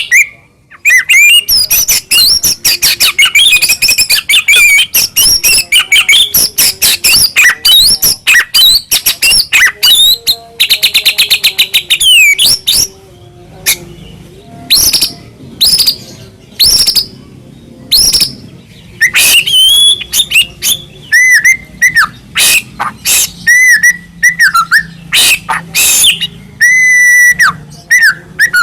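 White-rumped shama (murai batu) singing a full, loud song packed with varied phrases. It opens with rapid chattering clicks and chirps, has a buzzy rattle about ten seconds in, and moves to clear whistled notes near the end.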